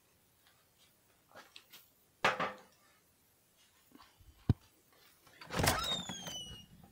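Handling and movement noise as a handheld camera is carried through a room: scattered soft knocks, a thump, and a single sharp click about halfway through. Near the end comes a louder scrape with a falling squeak.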